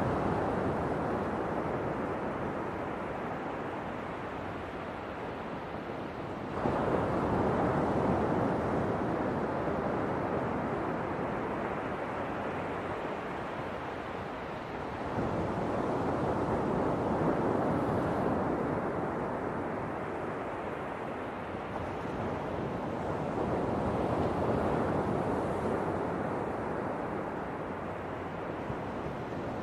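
Ocean waves breaking and washing on a shore, a steady surf noise that swells every several seconds, with a sudden surge about six seconds in and another about halfway through. Some wind rumble on the microphone.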